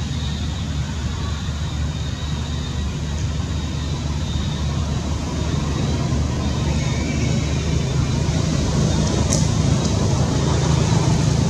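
Steady low engine rumble, growing somewhat louder from about halfway through, with a faint steady high tone above it.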